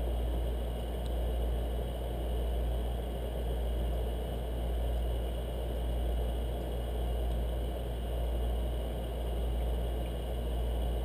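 Steady machine hum with an airy rush over it, swelling and easing in a slow, regular beat.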